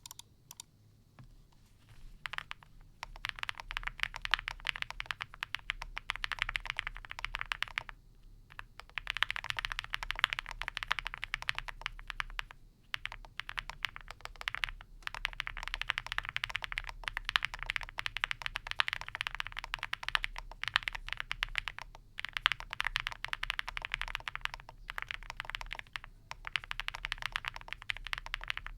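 Fast typing on an Owlab Spring mechanical keyboard with lubed and filmed Harimau tactile switches, an aluminium plate, foam dampening and Cherry-profile keycaps: a dense run of keystroke clacks. It starts about two seconds in and stops briefly a few times.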